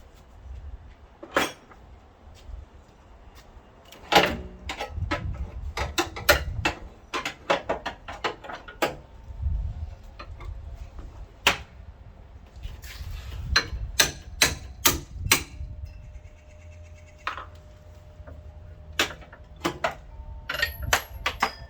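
Irregular metallic clinks and knocks of hand tools and sockets being handled and fitted during work on the crankshaft bolt. A faint steady tone joins in about two-thirds of the way through.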